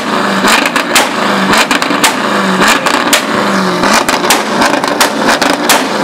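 Chevrolet C5 Corvette's V8 revved in about four short bursts, with many sharp exhaust pops and bangs all the way through.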